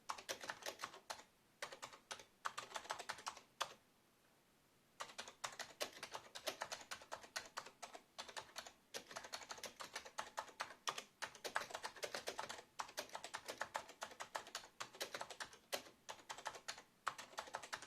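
Fast typing on an Acer 6311 keyboard: a rapid stream of key clicks in bursts, with a pause of about a second partway through.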